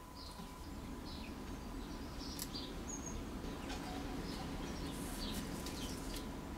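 Faint, scattered high chirps, bird-like, with a few light clicks over a steady low hum.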